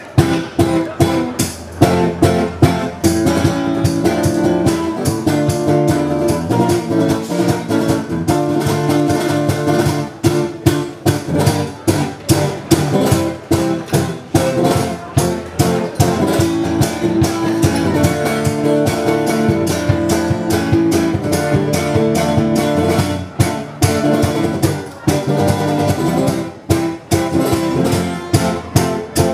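Hollow-body archtop guitar playing an instrumental tango passage: plucked melody notes and chords over a steady, regular rhythm, with no singing.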